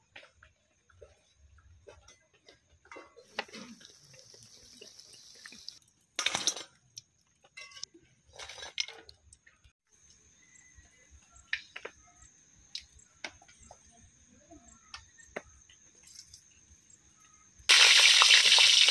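Scattered light clicks and knocks of cooking utensils beside a wood-fired clay stove, over a faint steady high-pitched tone. Near the end a loud steady hiss sets in suddenly and carries on.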